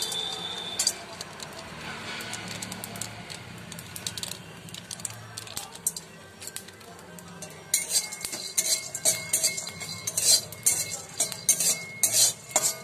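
Metal spatula scraping and clicking against an aluminium kadai as whole garam masala spices are stirred and roasted. The clicks and scrapes come sparse at first and turn frequent and loud in the second half.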